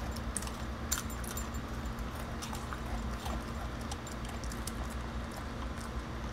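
A dog eating dry kibble from a bowl: irregular crunches and clicks of kibble being chewed and knocking against the bowl, thickest about a second in.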